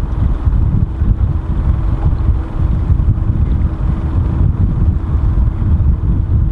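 Wind buffeting the microphone, a loud low rumble, with a faint steady hum underneath.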